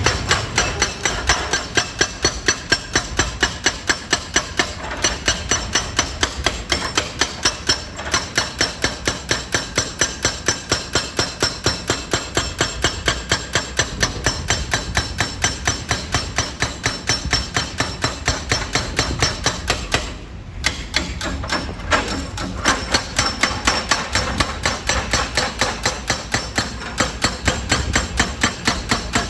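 Hydraulic rock breaker pounding stone: rapid, evenly spaced hammer blows about three a second, stopping briefly about 20 seconds in before hammering again.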